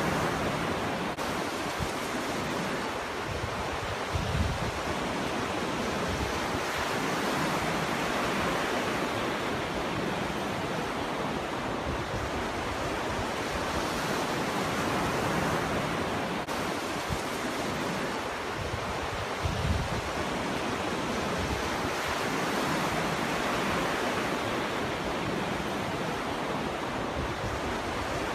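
Ocean surf: waves breaking and washing ashore in a continuous rush that swells and ebbs every few seconds, with two brief low thuds, about 4 seconds in and about 20 seconds in.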